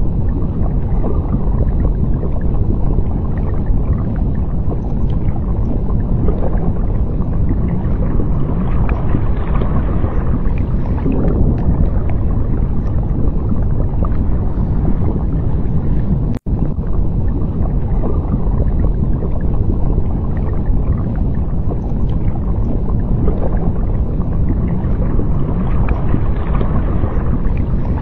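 Steady deep underwater rumble and wash, heavy in the low end. It cuts out for an instant a little past the middle.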